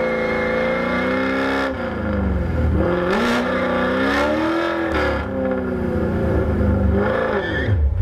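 Camaro SS 6.2-litre V8 at high revs through a line-lock burnout, the rear tyres spinning in place and smoking. The revs hold steady at first, then drop and climb again several times, and cut off just before the end.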